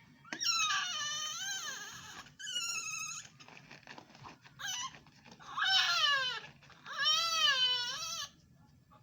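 Newborn baby crying: five high-pitched wails separated by short gaps, the longest about two seconds, with the pitch rising and falling within each cry.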